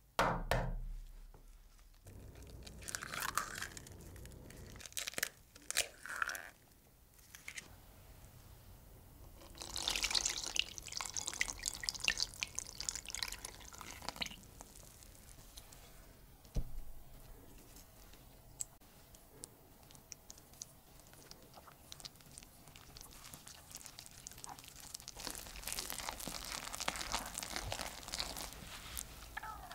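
Food-prep handling sounds in a glass mixing bowl. It opens with a sharp knock as an egg is cracked and dropped into the flour, followed by a few short wet sounds. Milk is then poured in for several seconds, and near the end thick batter is stirred and folded with a silicone spatula against the glass.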